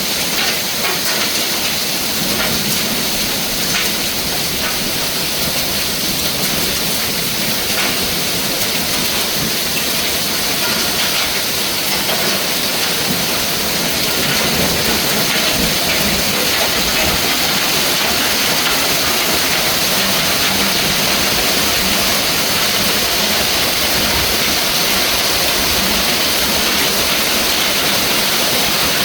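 Hail and heavy rain pelting down: a dense, steady hiss with scattered sharp ticks of stones striking, growing a little louder about halfway through.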